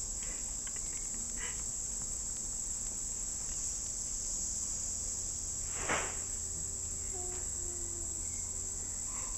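A steady, high-pitched insect chorus of crickets or cicadas drones on unbroken, with a single short knock about six seconds in.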